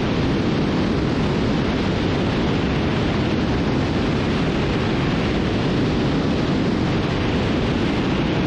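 Steady rush of wind and engine noise from a Cessna T310R twin in flight, even throughout with no distinct tones or changes.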